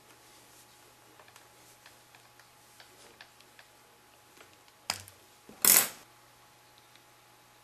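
Wire cutter/stripper working heavy 10-gauge power wire: faint clicks and ticks of the tool, a sharp snap a little before five seconds in, then a louder brief rasp just after.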